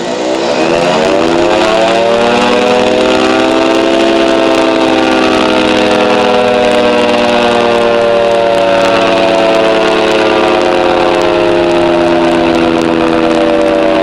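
Federal Signal 3T22 dual-tone tornado siren, its rotors spun by a hand-held power drill with both intakes removed, winding up over the first couple of seconds and then holding a steady chord of several pitches.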